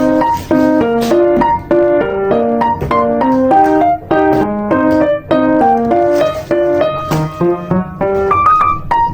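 Background music: a piano playing a quick, steady run of notes.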